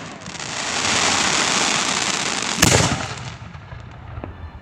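Aerial firework shells: a silver star burst fizzes with a dense, steady hiss, a second sharp bang lands about two and a half seconds in, and the hiss then fades away.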